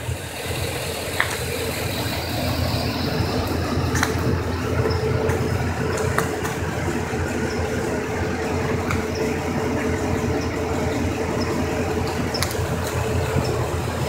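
Vehicle engine idling: a steady low hum with a constant tone over it, and a few light clicks.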